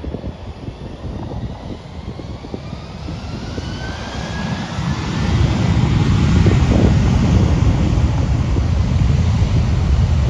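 Twin-engine jet airliner's engines spooling up for takeoff: a whine rising in pitch over a few seconds, then, from about five seconds in, the loud, steady low rush of takeoff thrust.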